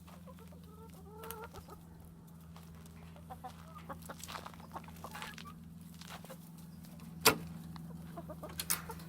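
Chickens clucking now and then over a steady low hum, with one sharp click about seven seconds in.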